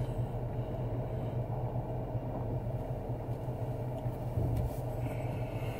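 Dodge Charger Daytona's engine running steadily, heard from inside the cabin as a low, even hum.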